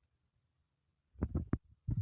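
A quick run of soft low thumps and knocks starting about halfway through, after a nearly quiet first second.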